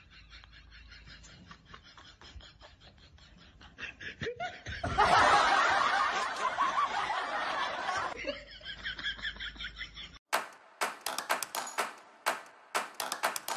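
A person laughing, soft snickering at first, then a loud burst of laughter about five seconds in lasting some three seconds. After a cut near the end, a run of short sharp clicks or taps.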